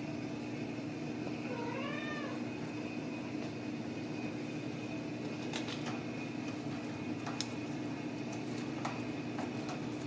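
A Ragdoll kitten gives one short meow that rises and falls in pitch, about two seconds in, over a steady background hum. A few light taps follow later on.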